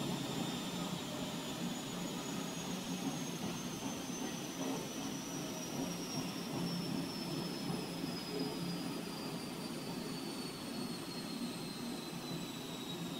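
Freight train's tarpaulin-covered wagons rolling past on the rails, a steady rumble of wheels that eases a little near the end. A thin high whine slowly falls in pitch throughout.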